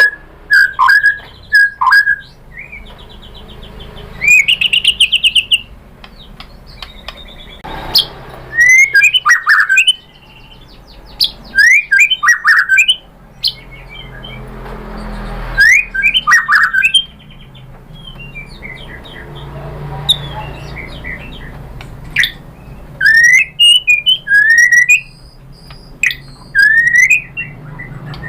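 White-rumped shama singing: loud whistled phrases of gliding notes and chirps, with a fast trill and quick high rattling runs, in bursts separated by short pauses.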